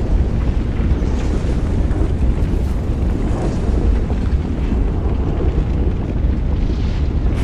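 Lava-planet ambience: a steady, deep volcanic rumble with a hiss over it and faint crackles now and then.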